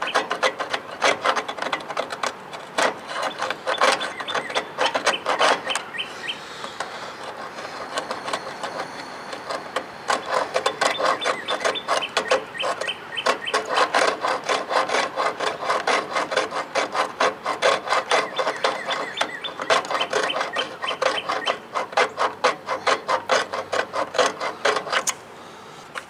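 Quick, repeated back-and-forth scraping of a small hand tool on the rusty relay terminals of an old RV furnace, cleaning the rust off the contacts. The strokes ease off for a few seconds about a quarter of the way through, then carry on.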